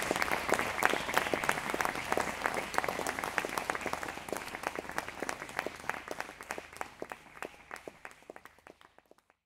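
Audience applauding, the clapping thinning and fading away to silence near the end.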